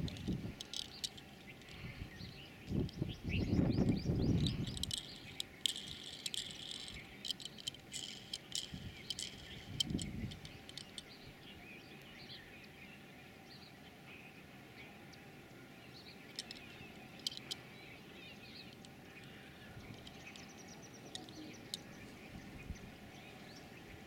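Birds chirping, with short high calls scattered throughout and a busier stretch about six to eight seconds in. A few low rumbles come in the first few seconds and again around ten seconds in.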